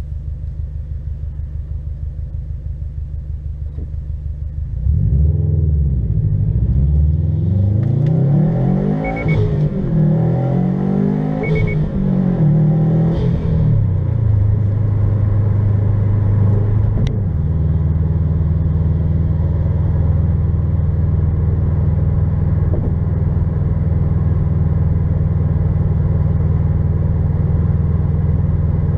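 2018 Subaru STI's turbocharged 2.5-litre flat-four, on a COBB Stage 3 flex-fuel tune running E85, heard from inside the cabin: idling, then about five seconds in pulling hard from a stop, its pitch rising and dropping through several gear changes, then settling into a steady cruise drone at about 60 mph.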